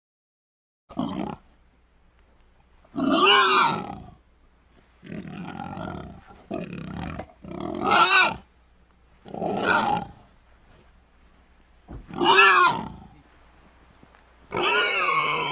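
Warthog calling: a series of about eight loud pitched calls, each under a second and arching up and down in pitch, a second or two apart.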